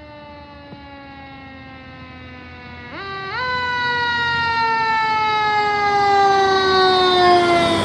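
Siren of a 2023 Pierce Impel fire engine responding with lights on and getting louder as it approaches. Its pitch sags slowly, sweeps up quickly about three seconds in, then winds down slowly again.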